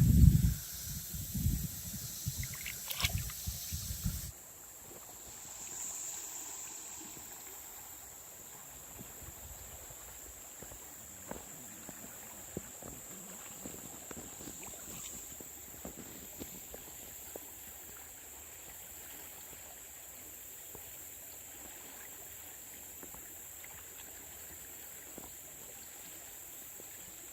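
Outdoor river ambience. For about four seconds there is rumbling noise with a few knocks, then after a sudden cut a quiet steady hiss with a constant high-pitched tone and scattered faint ticks.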